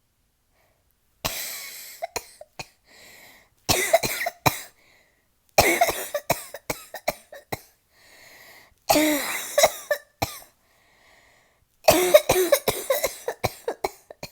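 A woman coughing with her mouth open, letting it out rather than holding it in, in five bouts of several coughs each that start about a second in. Short breaths are drawn in between the bouts. It is a cough from a cold.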